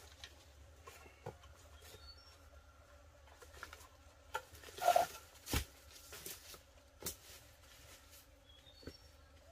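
Footsteps crunching and rustling through dry leaf litter and twigs, with scattered sharp snaps, the loudest about five seconds in. A few faint high chirps sound in the background.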